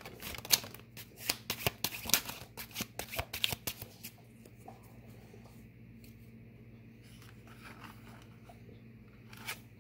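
A deck of tarot cards being shuffled by hand: a quick run of crisp card snaps and riffles for about four seconds, then only a few soft touches and one more snap near the end, over a steady low hum.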